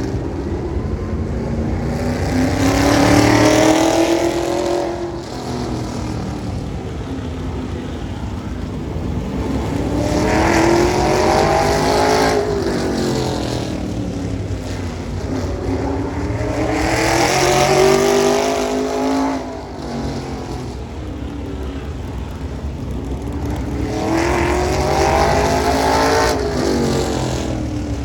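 Race car engine lapping a short oval track, its note climbing as it accelerates and dropping off as it slows, four times about seven seconds apart.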